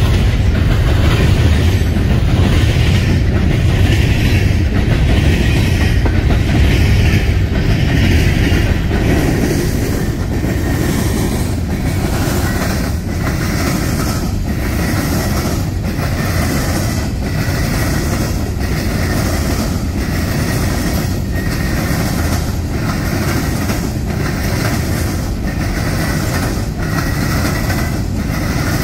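Coal hopper cars of a freight train rolling past: a steady low rumble, with the wheels clacking over the rail joints about once a second. A faint, high, thin wheel squeal runs under it in the second half.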